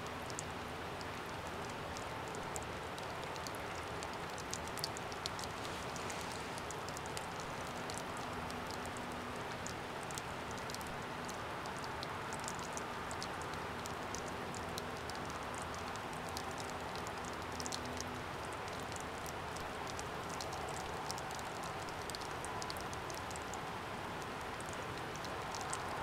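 Steady rush of flowing river water, with many small ticks and patters scattered over it.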